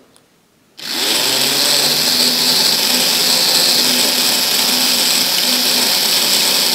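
Small electric motor in the power bogie of a Hornby Class 92 model locomotive, run straight from wires held across its terminals. It starts suddenly about a second in, with the polarity swapped so it turns the other way, and then whirs steadily at speed. The motor has just been oiled and is being run to work the oil into the moving parts.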